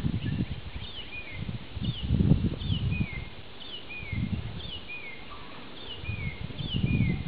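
A small bird repeats a high two-note call that falls in pitch, just over once a second. Under it come intermittent low rustling thuds, the loudest sound, from the horse moving with the tarp draped over it.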